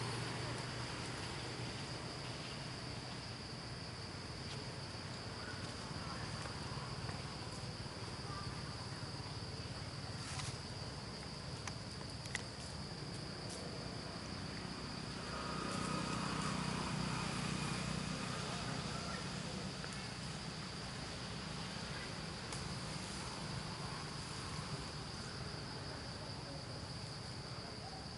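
Insects droning: one steady, unbroken high-pitched tone, with a few faint clicks. About halfway through, a lower sound swells up for a few seconds and fades again.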